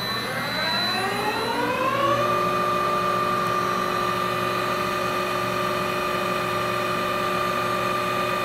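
ETCNC 2060 CNC lathe spindle starting up: a whine rising in pitch for about two seconds as the spindle spins up, then running steadily at speed.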